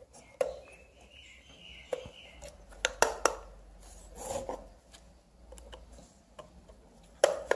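A small screwdriver prying at a plastic bulb holder on a metal lamp base: scattered clicks, scrapes and sharp knocks, the sharpest about three seconds in and near the end.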